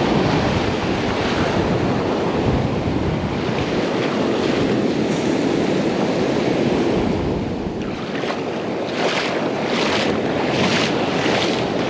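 Surf breaking and washing up a sand beach, with wind buffeting the microphone. Near the end, a run of short, evenly spaced hissing strokes, about two a second.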